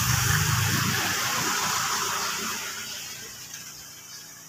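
A rushing, water-like hiss that fades away steadily, with a low steady hum underneath that stops about a second in.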